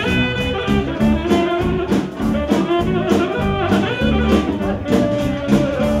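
Live blues band playing an instrumental passage: a saxophone plays the lead line over electric bass, acoustic guitar and a drum kit keeping a steady beat.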